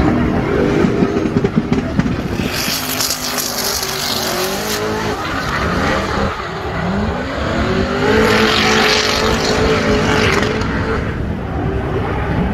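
Drift car's engine revving up and down at high revs while its tyres spin and squeal in a slide. The tyre noise swells twice, about two and a half seconds in and again around eight seconds in.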